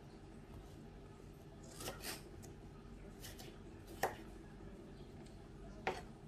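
Kitchen knife cutting cucumber on a wooden cutting board: a few separate strikes of the blade on the board, about four in all, over a low steady hum.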